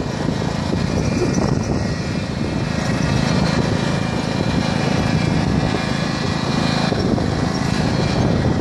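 Lawn tractor's small engine running steadily as it tows a coasting motorcycle across grass, mixed with a rough, continuous rumble and rattle from the ride.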